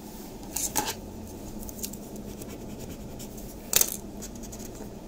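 Short scratching scrapes on a card's scratch-off code panel: a couple of quick scrapes about a second in and a single louder one near four seconds in.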